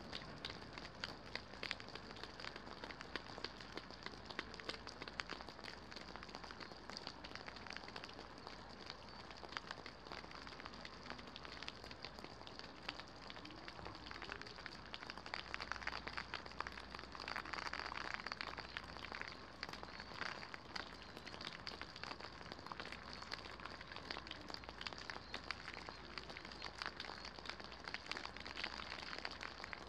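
Light rain falling, heard as a faint steady hiss with many separate drop ticks, swelling for a few seconds just past the middle.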